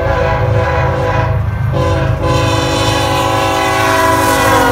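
BNSF freight train's diesel locomotive sounding its air horn in one long blast, with a short change in the tone about two seconds in and the pitch falling slightly near the end. A low engine rumble runs underneath.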